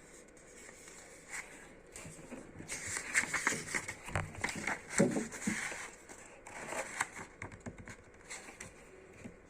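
Sticker packaging crinkling and rustling as it is handled and opened, with sharp little ticks and taps. The busiest handling comes in the middle few seconds.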